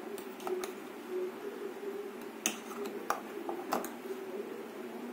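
A metal spoon clinking a few times against a stainless-steel mixer-grinder jar while stirring and scooping thick coconut chutney, over a steady low hum.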